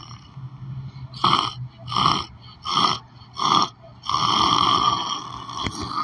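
A man making snoring sounds: four short snores in quick succession, then a longer drawn-out one from about four seconds in.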